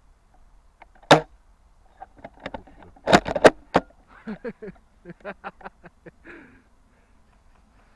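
Airsoft gunfire: a single sharp crack about a second in, then a close cluster of loud snaps and knocks, followed by a rapid string of softer shots.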